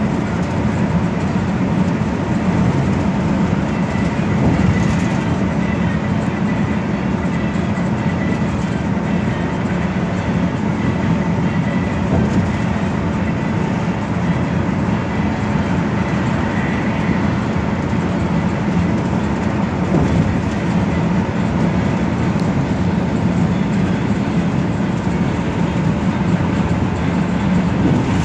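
Steady interior noise of a moving express bus: engine drone and road rumble at cruising speed, with a faint steady whine.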